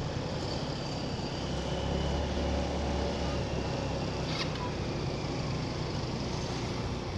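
Engine and road noise from a vehicle driving slowly through town traffic, as heard from on board. The low engine drone swells for a couple of seconds after about a second in, and there is one short sharp tick just past the middle.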